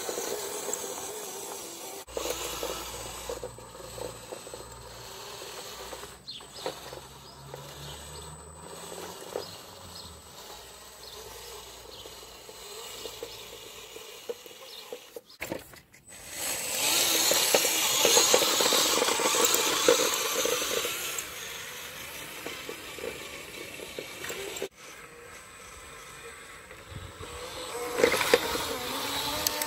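Electric motor and gearbox of a WPL B24 GAZ-66 6x6 RC truck running as it crawls over loose dirt towing a trailer. The sound changes abruptly a few times, and a louder stretch of hiss comes a little past halfway.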